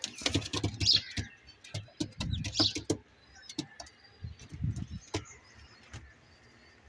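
Birds chirping in short high bursts, about three times in the first three seconds, among scattered clicks and a few low rumbling thuds.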